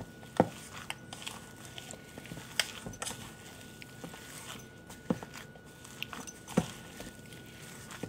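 Gloved hand kneading and squeezing a thick, wet oat-and-bean sausage dough in a stainless steel bowl: soft squelching and crinkling of the plastic glove, with a short knock every second or two as the dough and bowl are pushed about.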